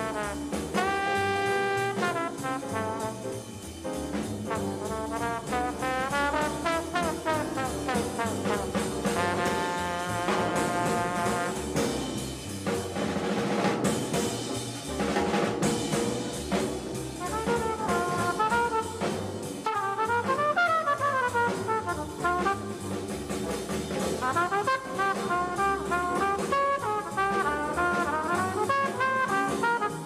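Small-group bebop jazz. Horn lines play over the rhythm section: long held notes, then fast trumpet runs near the end.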